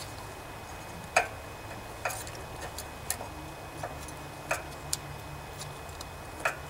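Light metallic clicks and taps, about six at irregular intervals with the loudest about a second in, as a steel feeler gauge knocks against the rocker arms and valve gear of a Briggs & Stratton OHV Intek single-cylinder engine.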